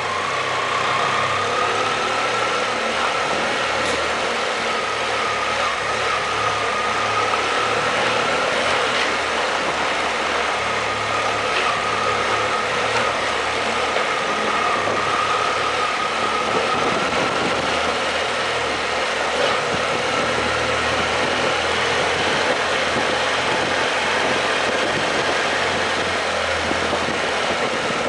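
BMW F800GS motorcycle's parallel-twin engine running at a steady pace while the bike is ridden through a rough rock-cut tunnel, with steady road noise.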